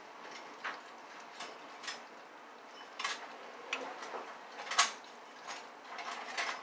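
Scattered clinks and knocks of kitchen utensils and dishes, about nine short separate strikes, the loudest just under five seconds in.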